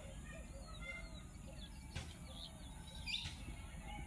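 Small birds chirping, many short rising and falling notes, over a low steady rumbling background, with a couple of brief clicks around two and three seconds in.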